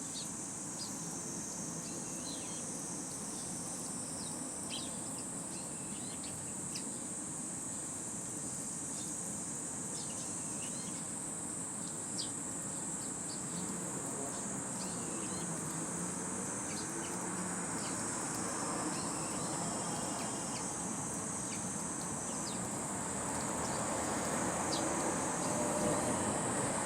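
A steady high insect drone, with scattered short chirps from Eurasian tree sparrows. A low rushing noise grows louder in the last few seconds.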